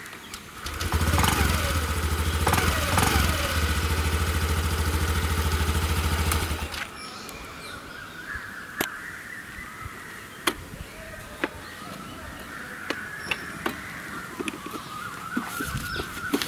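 A small scooter engine starts, runs steadily for about six seconds, then cuts off abruptly. Scattered light clicks and knocks follow as the scooter is handled.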